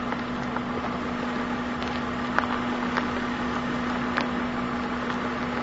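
Car driving slowly on gravel: the engine runs with a steady low hum under an even rumble of tires, with scattered small pops of stones.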